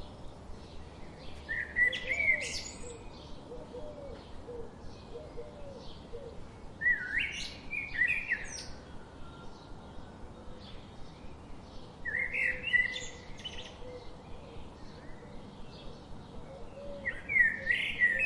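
Birdsong: a songbird repeats a short song phrase about every five seconds, four times, with faint chirps from other birds between the phrases.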